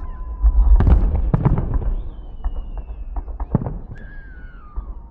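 Fireworks salute: aerial shells bursting with sharp bangs about a second in, again around a second and a half, and near three and a half seconds. Two long falling whistles sound between the bangs.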